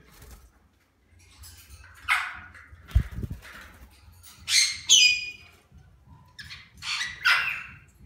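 Cockatiels giving short, harsh squawks, several calls spread over a few seconds, with a low thump about three seconds in.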